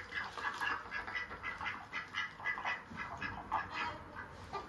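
Recorded ducks quacking, a rapid string of short quacks several a second, played back through a speaker.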